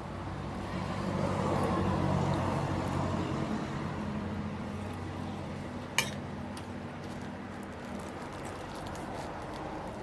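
A motor vehicle passing, its engine hum swelling over the first couple of seconds and fading away. About six seconds in, a single sharp clink of cutlery against a plate.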